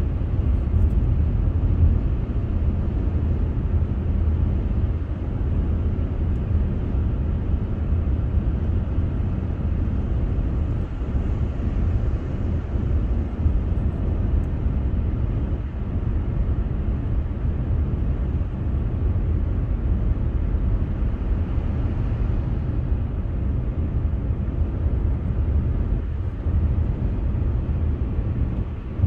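Steady low rumble of road and tyre noise from a car cruising at highway speed, heard from inside the car.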